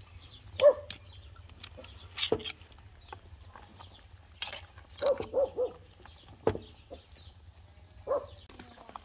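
A dog barking in short barks: one about a second in, a quick run of three or four about five seconds in, and another near the end. A metal ladle clinks a few times against an aluminium stockpot.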